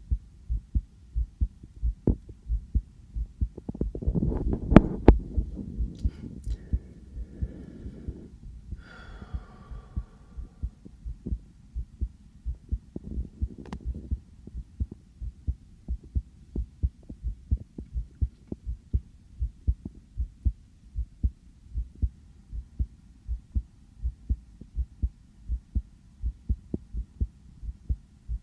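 A person's heartbeat heard through a stethoscope on the chest: a steady, quick run of low double thumps (lub-dub). About four seconds in, a louder rubbing, scraping noise briefly rises over the beats.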